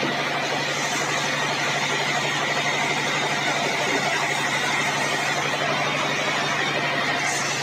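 Band sawmill machinery running steadily, a constant motor hum with a broad whirring noise over it.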